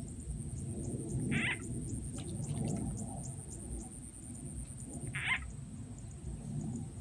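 Two short frog calls, about four seconds apart, part of a repeating series used to lure frogs, over a steady high-pitched drone.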